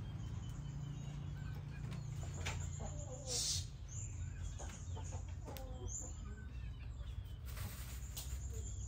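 Chickens clucking, a few short calls scattered through, over a steady low hum, with two brief bursts of hiss, one about three and a half seconds in and one near the end.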